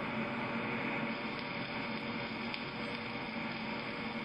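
Stick welding arc on steel plate: a steady crackling hiss over an electrical hum.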